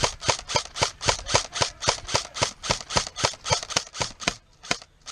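Airsoft gun firing rapid semi-automatic shots, about four sharp cracks a second for some four seconds, then two more single shots near the end.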